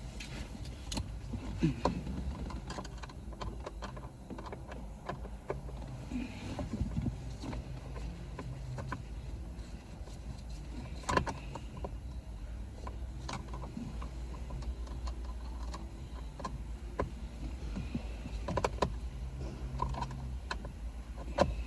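Scattered clicks and knocks of a Phillips screwdriver and plastic steering-column trim being handled as screws are taken out, over a steady low hum.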